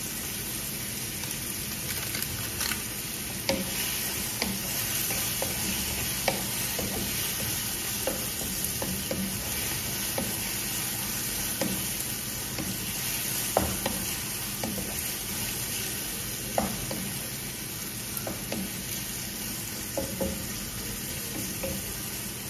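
Chicken pieces sizzling as they sauté with garlic and onion in a frying pan, stirred with a wooden spatula that knocks and scrapes against the pan every so often. The sizzle is steady, with short taps of the spatula scattered through it.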